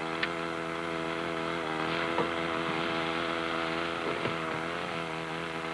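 Small engine running at a steady speed, with a few faint clicks and knocks over it.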